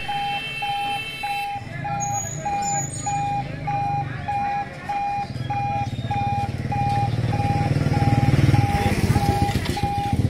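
Railway level-crossing warning beeper sounding a steady electronic beep, about two a second, warning road traffic that the barrier is about to close. Motorcycle engines run underneath, getting louder toward the end as they come across the crossing.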